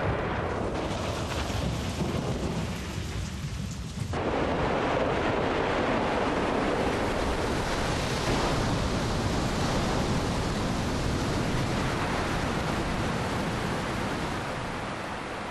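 Thunderstorm: thunder rumbling, then about four seconds in a dense, steady rush of heavy rain sets in and continues, easing slightly near the end.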